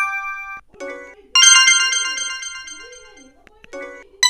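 Samsung SGH-E250 mobile phone ringtones playing one after another. One ringtone's last notes cut off just after the start, and a short tone follows. About a second and a half in, a bright ringtone of stacked notes starts and fades out; another short tone comes, then the next ringtone begins at the end.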